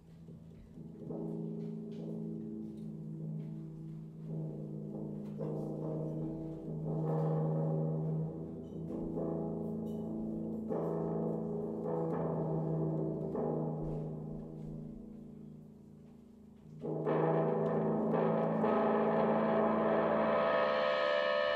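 Jazz big band playing slow, sustained low chords. About seventeen seconds in, a louder, fuller ensemble chord comes in and grows brighter toward the end.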